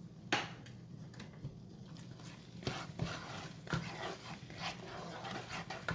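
A spoon clinking and scraping against a saucepan while cheese sauce is stirred, with a sharp knock about a third of a second in and irregular small clicks after.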